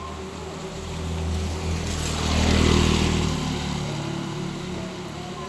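A motor vehicle passing by in the rain: its engine and tyre hiss swell to a peak about halfway through, then fade away. Steady rain sounds underneath.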